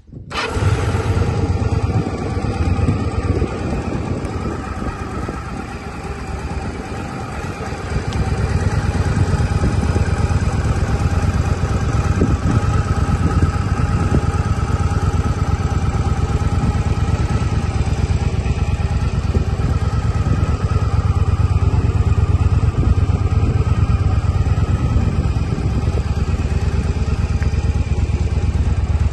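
Yamaha XVS 1100 Drag Star's air-cooled V-twin engine catching just after the start and then idling steadily, a little louder from about eight seconds in.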